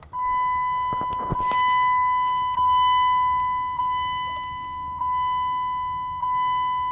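A 1996 Dodge Dakota's dashboard warning chime sounds as the ignition is switched on: a steady high tone, renewed about every 1.2 seconds, lasting about seven seconds. A few sharp clicks come about a second in.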